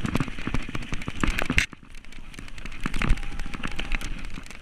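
Downhill mountain bike clattering over a rough dirt trail: a dense, irregular rattle of knocks from the bike's frame, chain and suspension over bumps, with tyre noise. The rattle briefly drops away about a second and a half in, then resumes.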